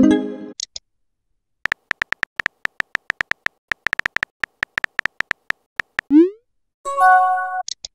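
Texting-app sound effects: rapid keyboard tap clicks in quick runs as a message is typed, a short rising whoosh as it is sent about six seconds in, and brief electronic chime tones at the very start and again about seven seconds in.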